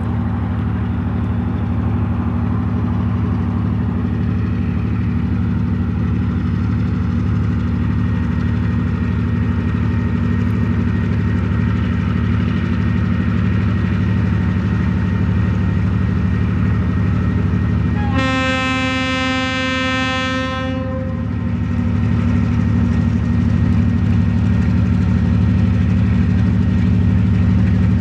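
TasRail DQ-class diesel-electric locomotive approaching with a steady low engine drone, and sounding one horn blast of about two and a half seconds about two-thirds of the way in.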